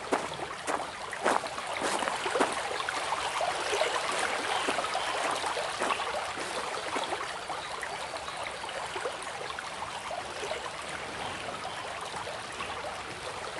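Stream water running and trickling, with many small splashes in the first few seconds, then a steadier flow.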